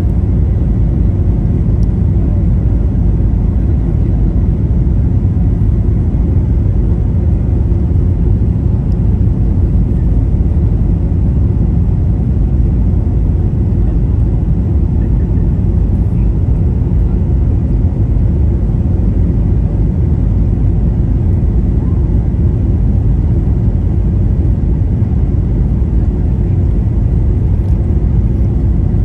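Steady low rumble of engine and airflow noise inside the cabin of a Boeing 737-800 descending on approach, with a faint high steady tone above it.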